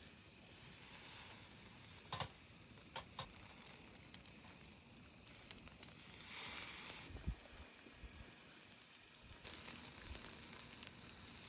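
Food sizzling steadily on a hot grill, swelling twice, with a few light clicks.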